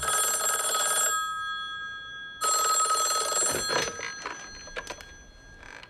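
A telephone bell ringing twice, each ring about a second long, followed by a few faint clicks.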